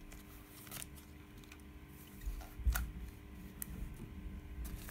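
Metal cutting dies in paper and plastic sleeves being handled: sporadic light rustles and clicks, with a few soft thumps about halfway through.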